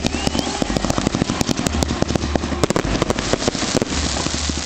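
Fireworks crackling: a dense, rapid, irregular run of sharp pops and small bangs over a steady hiss, from a ground fountain spraying sparks and crackling star bursts overhead.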